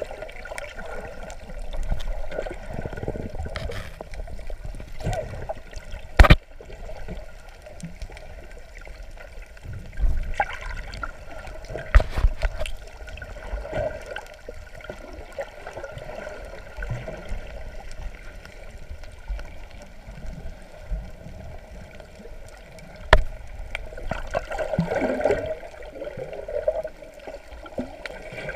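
Muffled underwater sound picked up by a GoPro in its waterproof housing: water swishing and gurgling, with a few sharp knocks, the loudest about six seconds in and others about twelve and twenty-three seconds in.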